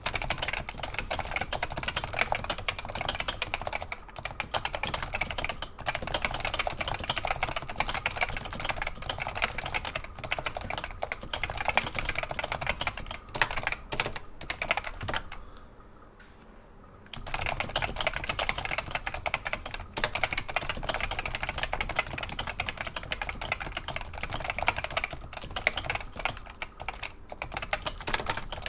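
Typing on a Realforce RGB keyboard with Topre electrostatic capacitive switches and thick 1.5 mm PBT keycaps: rapid, continuous keystrokes, with one pause of about a second and a half a little past the middle.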